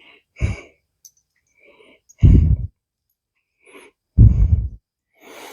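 Short, heavy puffs of breath, about one every two seconds.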